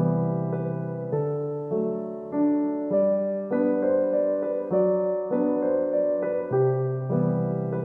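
Background music: a gentle piano tune, notes struck roughly every half second in a repeating phrase.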